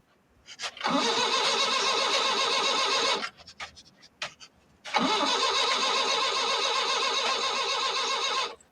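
Van engine being cranked by its starter twice without catching: two long cranking spells, the second longer, each cut off abruptly as the key is released.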